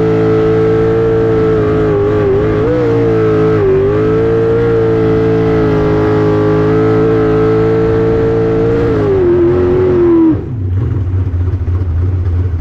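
Jet sprint boat's engine running hard at high revs, its pitch dipping briefly a few times. Near the end the revs sag, then drop away suddenly to a low rumble as the engine comes off throttle.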